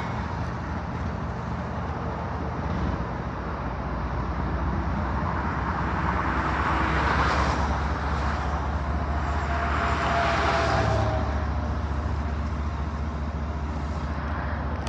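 Union Pacific diesel-electric freight locomotives pulling a train away from a siding, their engines working under load with a steady low drone. The broader noise swells twice along the way.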